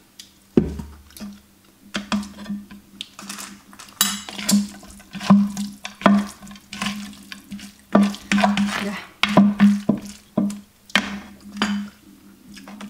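Wooden spatula stirring and tossing food in a terracotta mortar bowl, with irregular knocks and scrapes of wood and a spoon against the clay. A heavier knock comes about half a second in.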